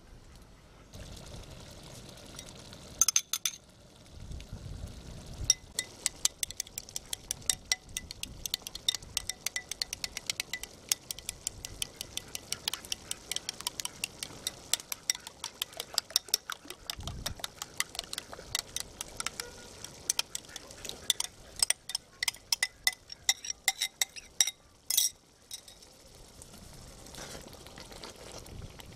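Metal spoon beating a thick yellow mixture in a glass bowl, clinking quickly and steadily against the glass for most of the stretch. A few sharper, louder clinks come near the start and near the end.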